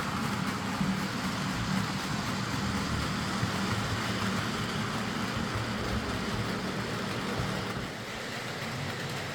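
Bachmann Class 47 OO gauge model locomotive running steadily along the track: a continuous motor hum with a hiss of wheels on rail, easing slightly near the end.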